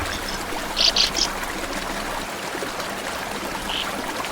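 Small stream running steadily, with a few short high chirps about a second in and once more near the end.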